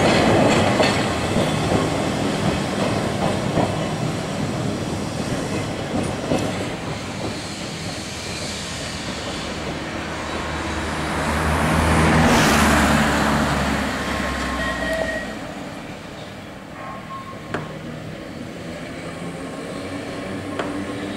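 Manx Electric Railway electric tramcars and trailers running past, their wheels rumbling and clattering on the rails. The noise fades after the start, then swells again about halfway through as another tram passes close, with a low hum, before dying away; a single sharp click comes near the end.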